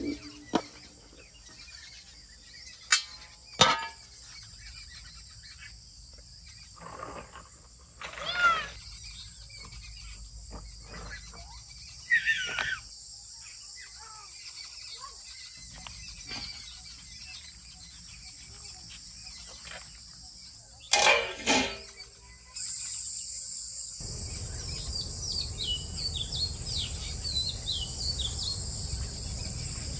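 Steady high-pitched insect drone, with a few short, sharp knocks in the first twenty seconds and birds chirping near the end.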